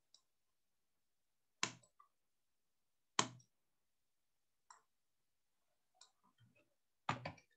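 Faint, scattered clicks from a computer mouse and keyboard. Single clicks come about every second and a half, then a quick run of several clicks near the end.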